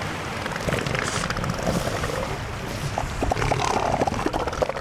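Strong wind blowing over a sandy beach, rumbling on the microphone, with light crackling about three seconds in.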